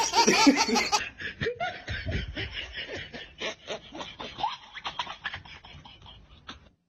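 A person snickering: short breathy bursts of laughter a few times a second, louder at first and fading away, then cutting off suddenly near the end.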